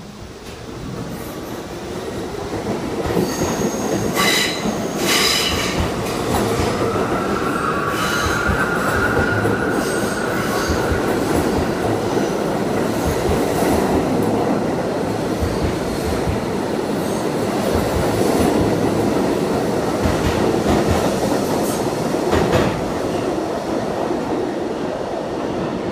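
Kawasaki R68A subway train pulling out of an underground station and picking up speed as its cars run past. The steady wheel rumble builds over the first few seconds and eases slightly near the end. A brief high wheel squeal comes about four seconds in, and clacks sound over rail joints.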